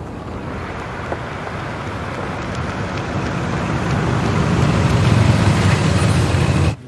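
Engine and road noise of a moving car, growing steadily louder, then cutting off abruptly near the end.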